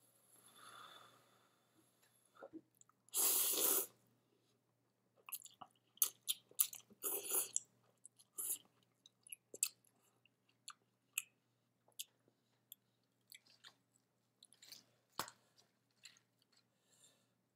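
A person slurping and chewing instant ramen noodles close to the microphone. There is one long, loud slurp about three seconds in, then a run of shorter slurps and wet chewing, and after that scattered small clicks and mouth sounds.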